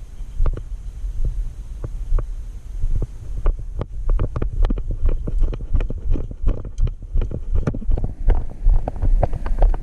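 Irregular dull thuds and rustles of a person moving, likely footsteps and gear knocking close to the microphone, about two to four a second and busier in the second half, over a steady low rumble.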